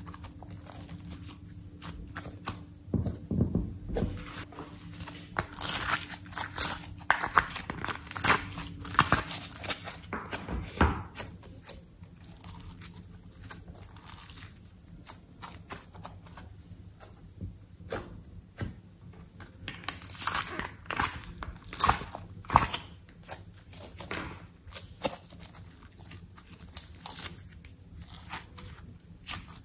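Slime being mixed and worked by hand: irregular sticky clicks, pops and crinkling, coming in two busy spells, one a few seconds in and one past the middle.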